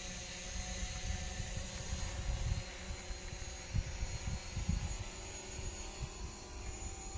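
Low, uneven rumble of wind buffeting the microphone, in irregular gusts that peak about halfway through, over a steady faint hum and a thin high whine.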